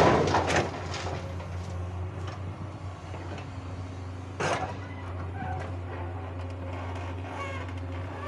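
A hydraulic excavator's diesel engine runs with a steady drone. In the first second a load of soil pours from its bucket into a dump truck's steel bed with a loud rushing clatter. About four and a half seconds in, a shorter burst of noise comes as the bucket digs into the soil pile.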